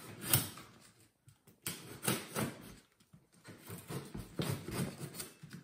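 Utility knife slicing through the duct tape and cardboard of a parcel, in short, irregular strokes.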